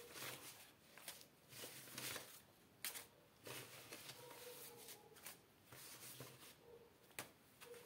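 50-euro banknotes being counted out one at a time onto a pile, each note giving a soft papery rustle and flick, roughly one every second.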